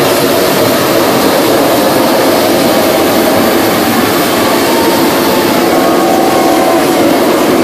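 Several hot air balloon propane burners firing at once: a loud, steady rush of burning gas that holds without a break.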